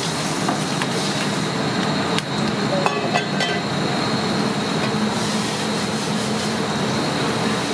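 Steady commercial-kitchen noise, with a few sharp metal clinks of utensils and pans about two and three seconds in.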